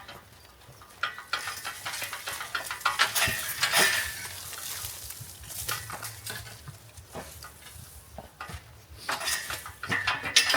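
Loose stones and rubble clattering and scraping against each other, with a run of sharp knocks, as stone is worked loose and moved by hand.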